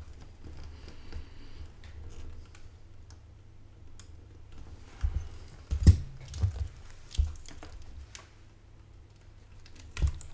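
Handling noise of a computer power-supply circuit board being reworked: scattered light clicks and taps, then a cluster of louder knocks about five to seven seconds in as the board is turned over and a glued-in electrolytic capacitor is worked loose. A faint steady low hum sits underneath.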